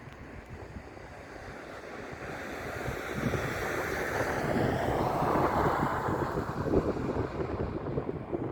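Jet airliner passing, its engine noise building to a peak about five or six seconds in while its pitch falls, with gusts of wind on the microphone.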